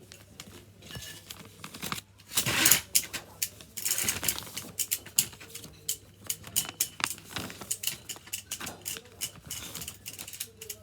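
A sheet of paper being folded and creased by hand into a paper airplane: irregular rustling and crackling, loudest a couple of seconds in.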